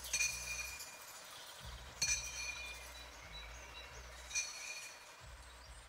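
Three sharp clinks about two seconds apart, each ringing briefly, over a faint outdoor background with small bird chirps.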